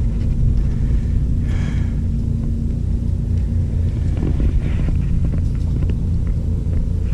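Wind buffeting the microphone: a steady low rumble, with a faint steady hum during the first few seconds and a couple of brief rustles.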